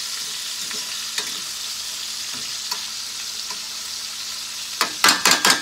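Seasoned chicken legs sizzling as they brown in hot oil in a stainless steel skillet, with a few faint pops as the pieces are pushed around with forks. A quick run of loud, sharp clacks comes near the end.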